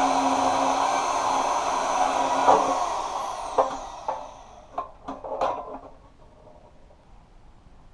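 An electric power tool's motor running steadily, then switched off and spinning down with a falling whine about three seconds in. A few sharp metallic knocks and clatters follow, then it goes quiet.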